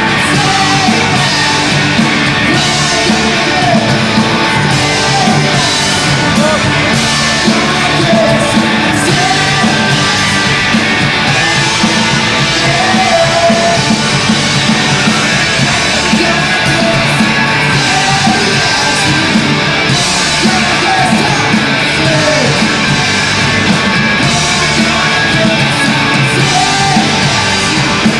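Live punk-rock band playing through a PA: electric guitars, bass and drum kit, with a sung, partly shouted lead vocal over them.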